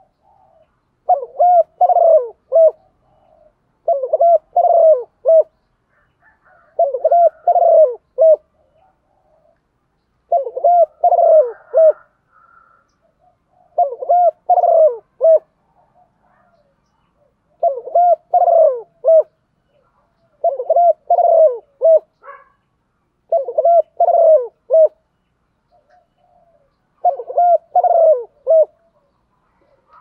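Spotted dove cooing: a series of about nine phrases, each made of three or four low hooting notes, repeated every few seconds.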